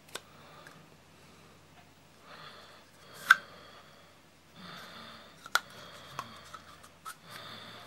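Handling of a shotgun-cartridge matchbox, a plastic shell with a metal cap, as it is slid out of and pushed back into a riveted leather neck holder: a few sharp clicks and knocks, the loudest about three seconds in, between stretches of soft rubbing.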